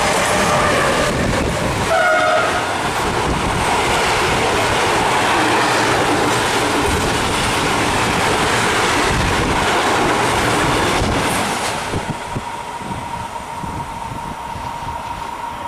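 Freight train behind a Siemens Vectron electric locomotive passing close at speed: a short horn blast about two seconds in, then the open freight wagons rattle and clatter over the rails. The noise drops at about twelve seconds as the last wagons pass, leaving a fainter rumble and a steady high tone.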